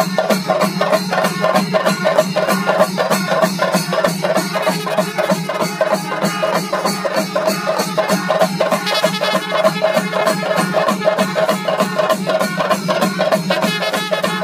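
Chenda melam: a large ensemble of chenda drums beaten with sticks in a fast, even, dense rhythm, with kombu horns sounding along with it.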